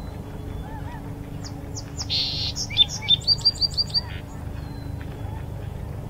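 A sparrow sings one song of about two seconds, starting about a second and a half in. It opens with a buzzy note, goes on with clear whistled notes, and ends with a quick run of about six high notes. A steady low rumble continues underneath.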